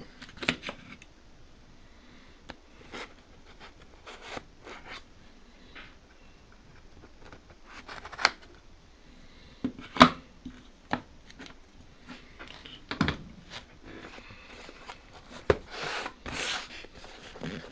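A shipping package being handled and pried at while it resists opening: scattered clicks, scrapes and rustling, with a few sharp knocks, the loudest about ten seconds in, and busier rustling near the end.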